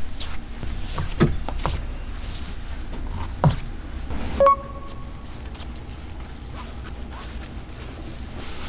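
Sharp metallic clicks and snips of hairdressing scissors working through hair, over a steady low hum. A short pitched tone sounds about halfway through.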